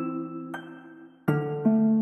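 Soft instrumental background music: notes ring and fade away, and a new chord comes in a little past halfway.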